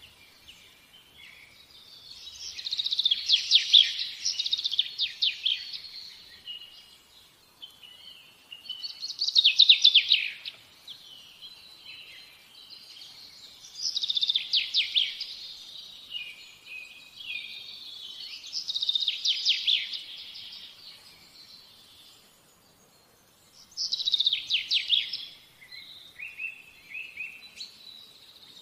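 A songbird singing: high, rapid trilled phrases a second or two long, repeated about every five seconds.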